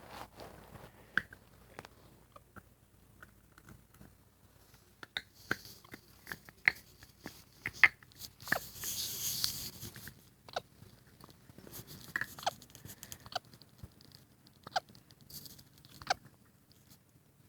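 A baby capuchin monkey at play: scattered small clicks, taps and short squeaks, with a rustling, crinkling burst about nine seconds in.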